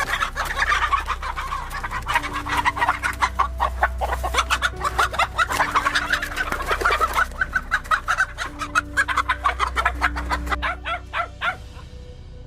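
A flock of chickens clucking, many short calls overlapping in a rapid, busy chatter that thins out near the end.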